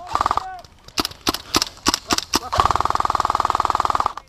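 Airsoft electric rifle (Elite Force Beretta ARX-160 AEG) firing: a few separate shots, then a rapid full-auto burst of about a second and a half, its gearbox whirring under the fast shot cadence.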